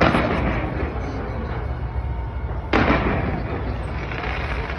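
Fireworks bursting: two loud bangs, one at the start and one nearly three seconds in, each trailing off into a rumble, over continuous low rumbling. People's voices are faintly audible underneath.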